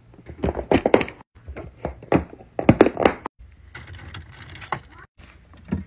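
Plastic lunch containers and packaged snacks being handled: a quick run of clicks and knocks of plastic on plastic, then rustling of packets in a fridge bin, and one more knock near the end.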